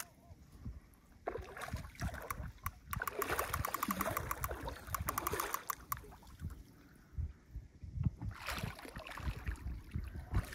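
Fishing reel clicking rapidly for about three seconds while a Wels catfish is played on the line. About eight and a half seconds in, a brief splash as the catfish comes to the surface.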